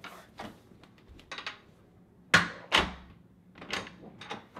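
A string of short knocks and thumps: a few light taps, then two loud sharp thumps about half a second apart just past halfway, and a few more taps near the end.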